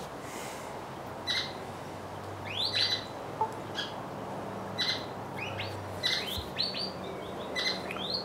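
Birds chirping: a string of short, sharp chirps and quick upward-sweeping calls, coming more often in the last couple of seconds.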